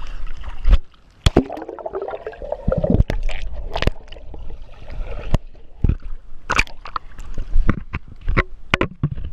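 Water sloshing and splashing close to the microphone, with irregular sharp knocks and a low rumble.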